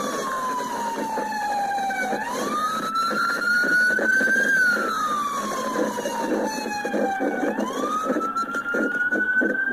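Police siren on a slow wail. Its pitch slides down and then sweeps back up, about two full cycles, over a steady rushing noise.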